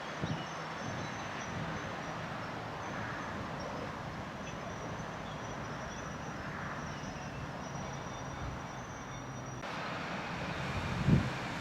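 Diesel locomotive engine running steadily.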